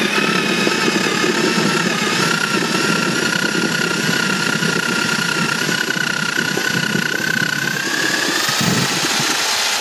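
Electric drill driving a homemade apple scratter, its motor whining steadily under load while the rotor grinds apples into pulp. The whine rises a little in pitch near the end.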